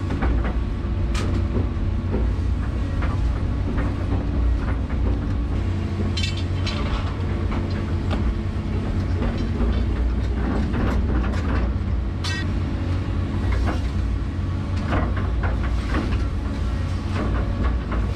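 Excavator's diesel engine running steadily under load, heard from inside the cab, as the boom and bucket work. Scattered clanks and rattles come as the bucket dumps soil and swings.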